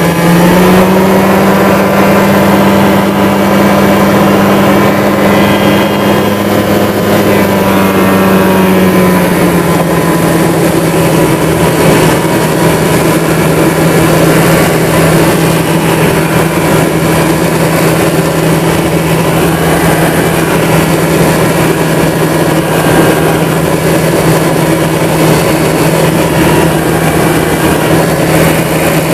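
A Minimax ultralight's small nose-mounted engine and propeller run steadily in flight under a rush of wind. About nine seconds in the engine note drops a little to a lower, steady drone.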